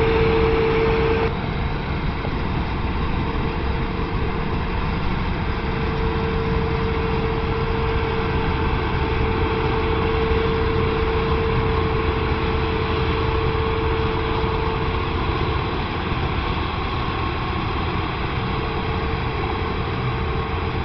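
Claas Lexion 600 combine harvester running: a steady engine and machinery drone with a constant whine. About a second in the sound drops slightly and the whine stops; it comes back a few seconds later.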